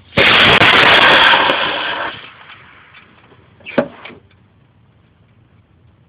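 Rocket motor igniting and firing at liftoff: a loud rushing burn that starts suddenly, holds for about two seconds, then fades over the next second as the rocket climbs away. A short sharp sound follows about four seconds in.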